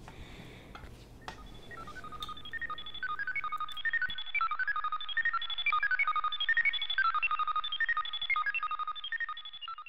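End-card music: a quick tune of short, high, plinking notes that fades in about two seconds in, grows louder, and fades out near the end.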